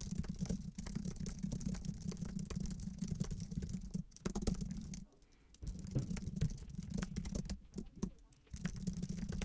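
Typing on a computer keyboard: a rapid run of keystroke clicks, pausing briefly twice, about five seconds in and about eight seconds in.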